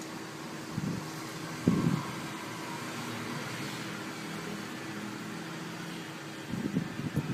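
A pet otter grappling and mouthing a chrome furniture leg on a tile floor: a couple of soft thumps early, then a run of knocking and scuffling near the end, over a steady background hum.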